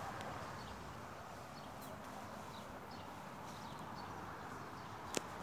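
Outdoor ambience: a steady low background hum with scattered faint bird chirps, and one sharp click near the end.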